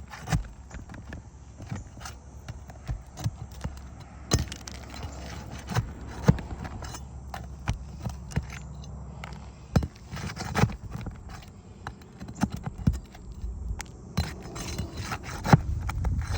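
Irregular metal clicks, taps and scrapes of a pry bar working under asphalt roof shingles to loosen and pull their nails.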